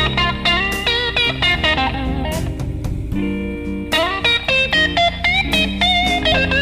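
Background instrumental music led by an electric guitar, its notes bending and sliding in pitch over held low bass notes.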